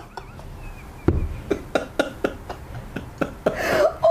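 A woman laughing in short breathy bursts, a few a second, getting louder toward the end, with a low thump about a second in.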